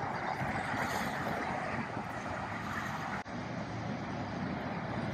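Steady noise of road traffic, broken by a brief drop about three seconds in.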